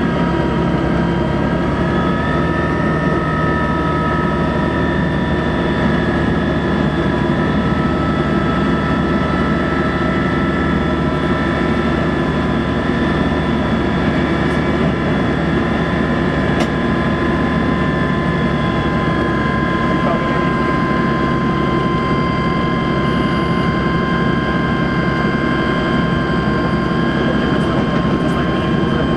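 Electric locomotive running along the line, heard from its cab: a steady rumble of wheels and running gear with a whine of several tones that creeps slowly up in pitch.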